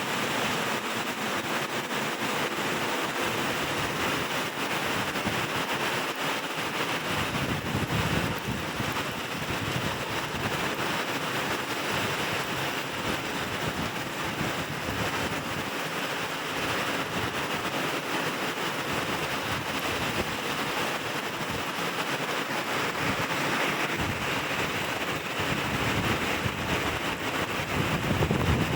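Steady heavy rain falling, an even hiss with no breaks. Gusts of wind hit the microphone about eight seconds in and again near the end.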